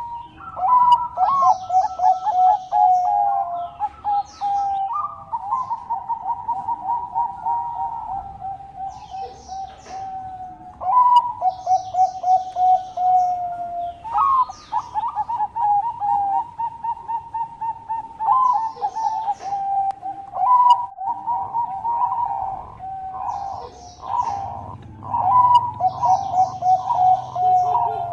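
Zebra dove (perkutut) song: phrases of rapid staccato cooing notes that start again every few seconds, with short high chirps from small birds in between.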